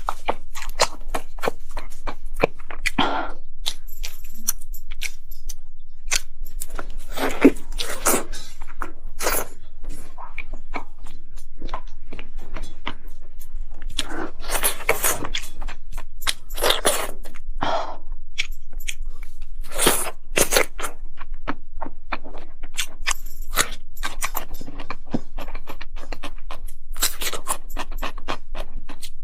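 Close-miked eating: a rapid run of crunching, chewing and mouth clicks, with louder crackly bites every few seconds.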